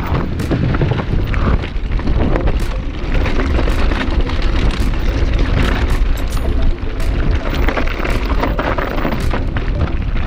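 Wind buffeting the microphone during a fast downhill mountain-bike descent, with the bike rattling and knocking over roots and rocks.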